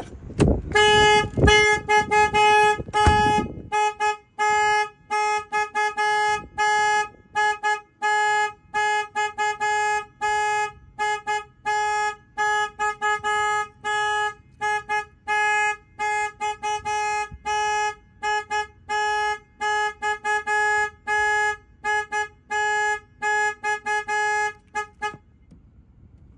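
The alarm has been tripped by the door opening, and the Kenworth T680 semi's horn is honking in repeated short blasts of one steady pitch. The honking starts about a second in and stops shortly before the end.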